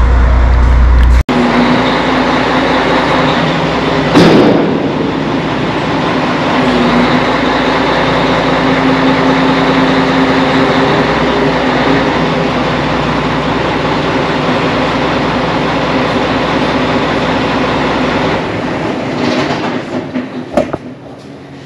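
A truck's hydraulic dump hoist being raised under the silage box with the engine running: a steady mechanical drone with a single knock about four seconds in, falling away near the end.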